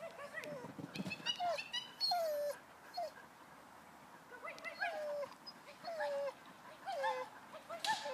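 Dog whining in a run of short, high, falling yelps, about one a second, the sound of a keyed-up, excited dog.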